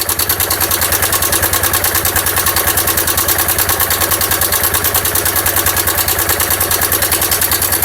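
Dion 150 motorcycle engine idling with a fast, even rattle from a slack cam chain: the cam chain tensioner is worn and no longer holds the chain tight.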